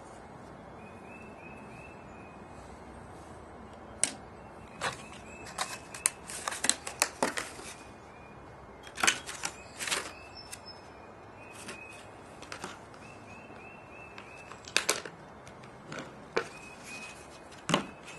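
Irregular sharp plastic clicks and taps from a netbook's case and RAM module being handled and pried, in several clusters of quick snaps.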